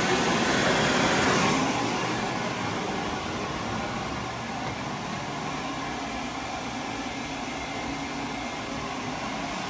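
Electric hand dryer blowing air with a steady rush; about a second and a half in it drops to a quieter, steady rushing noise.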